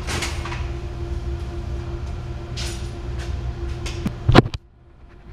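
Sheet-metal clatter and clicks as a motor control center bucket is pulled out of its cubicle and handled, over the steady hum of energized switchgear. A loud metal knock comes about four seconds in, then the sound cuts off abruptly.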